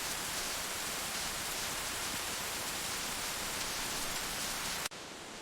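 Steady hiss of even noise, strongest in the highs, which cuts abruptly to a fainter hiss about five seconds in.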